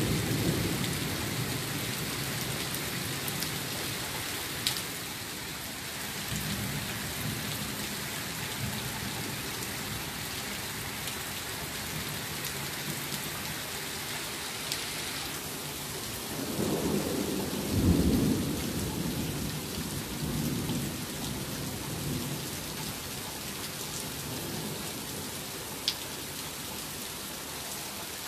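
Steady rain falling in a thunderstorm, with thunder rumbling low underneath. A longer, louder roll of thunder builds about two-thirds of the way in and fades out over a few seconds.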